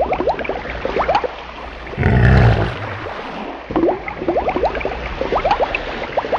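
Water bubbling and gurgling as a toy figure is pushed through a tub of water, with many quick rising bubble chirps and a heavier slosh about two seconds in.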